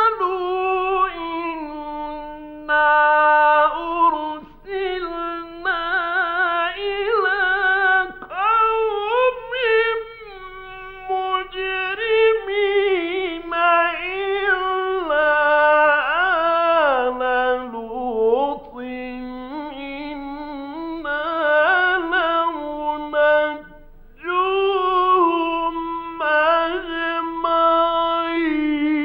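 A male Quran reciter chanting melodically in several long phrases with held notes and ornamented pitch glides, separated by short breaths. A faint steady hum from the old radio recording runs underneath.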